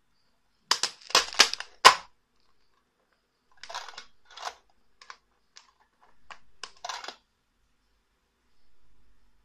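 Clicking and rattling of a clear acrylic capsule-filling plate and its loaded capsules being worked by hand: a quick run of sharp clicks about a second in, then scattered rattles and small clicks.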